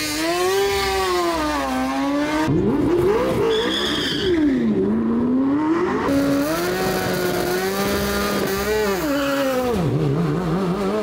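Race car engines revving hard, the pitch climbing through the gears and dropping at each shift and under braking, with an abrupt change to a different car about two and a half seconds in. A short high squeal comes about three and a half seconds in.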